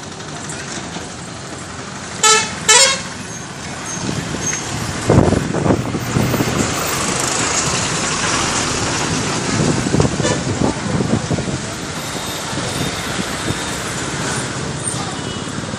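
Street traffic: two short vehicle horn toots about two seconds in, then the continuous running of passing vehicles, with a large truck or bus going by close at hand.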